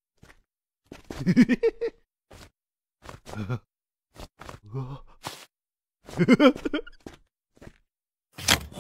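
A cartoon character's wordless grunts and groans, with short taps in between and a rushing noise starting right at the end.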